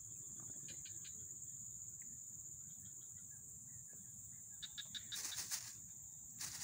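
Steady high-pitched chirring of insects, crickets or cicadas, with two louder, harsher bursts near the end.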